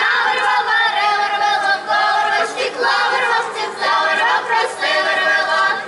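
Folk choir of women and children singing a cappella, many voices holding long sustained notes together.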